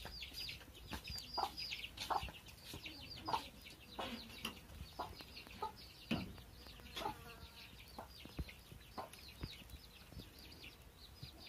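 Chickens clucking, with a constant run of short, high falling peeps over the top.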